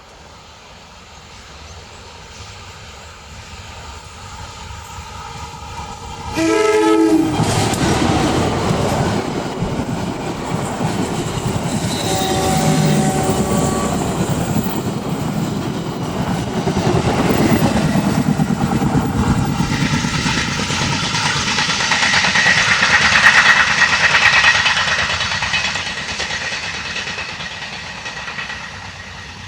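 A diesel locomotive-hauled train approaching and passing close by: a short blast of the locomotive's horn about six seconds in and another short horn sound around twelve seconds, then the rumble and clickety-clack of the carriages going by, with a high steady squeal from the wheels on the curve near the end before it fades away.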